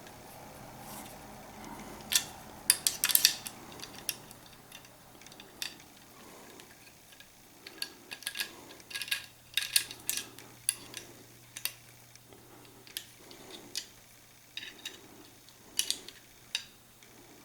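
Small metal gun parts being handled while the trigger-assembly screws of a CVA Eclipse muzzleloader are backed out with an Allen wrench: scattered sharp metallic clicks and taps, with softer repeated rubbing sounds in between.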